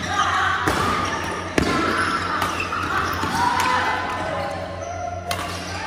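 Badminton rally: several sharp racket strikes on the shuttlecock, with shoes squeaking on the wooden court floor between hits, over a steady low hum.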